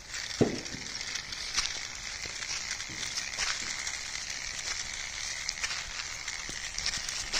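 Plastic wheels of a toy tractor and loaded trailer crunching and crackling over gritty sand and small pebbles, with scattered small clicks. A short falling squeak about half a second in.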